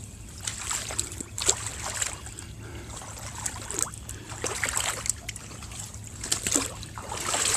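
Footsteps sloshing through shallow water and wet ground, a string of irregular splashes and steps.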